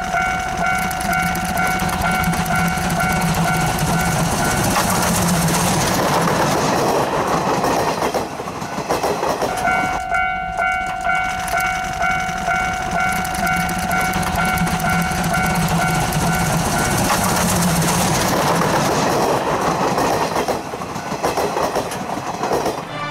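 C12 steam tank locomotive working hard with a long, steady steam-whistle blast of several notes, sounded again about ten seconds in, over the rush of its exhaust. Between and after the blasts, rhythmic exhaust chuffs come several times a second as the engine and its coaches pass close by.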